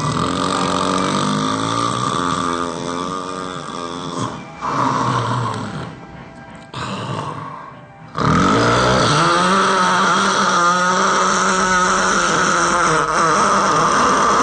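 A person snoring loudly in long, drawn-out snores with a droning pitched tone. A quieter stretch comes midway, and a loud sustained snore starts about eight seconds in.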